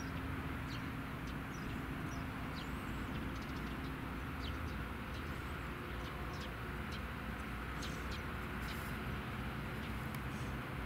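Open-air ambience: a steady low rumble with many short, high bird chirps scattered through it.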